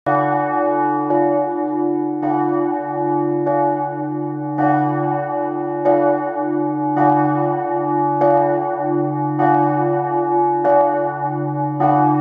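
Bells ringing, starting abruptly, with a stroke about once a second and each stroke's ringing tones carrying on and overlapping the next.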